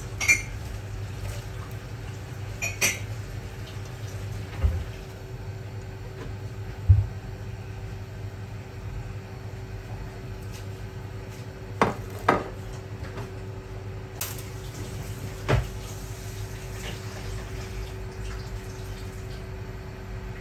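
Ceramic plate and steel spoon clinking and knocking against a metal cooking pot as chopped garlic, onion and green chillies are tipped in: a few sharp clinks and two duller knocks, spread out over a steady low hum.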